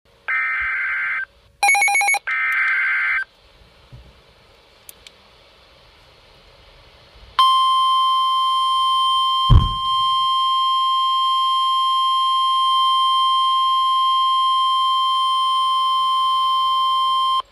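Emergency alert signalling for a tornado warning. It opens with three short bursts of buzzing digital SAME header data, then a few seconds of faint hiss. Then comes the NOAA Weather Radio warning alarm, one steady high tone held for about ten seconds before it cuts off, with a single knock about two seconds into the tone.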